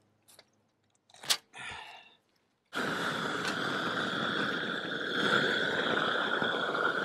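A sharp click about a second in, then, from just under three seconds in, the steady rushing hiss of a long-handled propane roofing torch heating the underside of a roll of torch-down roofing membrane as it is unrolled.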